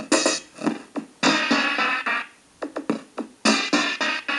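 Commodore 64 demo music from its SID sound chip: choppy synthesizer and drum-machine phrases in a steady rhythm, breaking off briefly a little past two seconds in.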